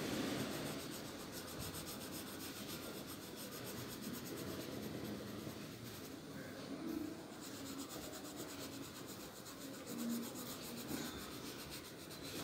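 Pencil lead scratching faintly on paper in quick, repeated shading strokes.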